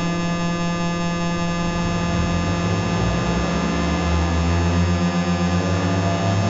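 Dense electronic drone of many held tones stacked from low to high, with a low rumble swelling up about four seconds in.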